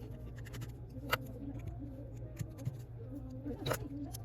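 Light scratching and clicking of small repair tools on a smartphone, with two sharper clicks, about a second in and near the end, over a steady low hum.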